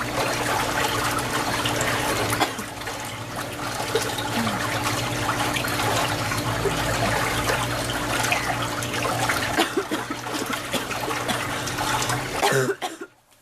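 Running water, a steady rushing with a low hum under it, that cuts off abruptly near the end.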